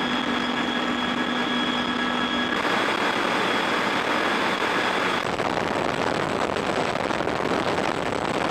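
CH-53 helicopter's turbine engines and rotors heard from inside the cabin: a steady, dense roar with a faint whine in it. The sound shifts twice, about two and a half and about five seconds in, when some of the steady tones drop out and the noise turns hissier.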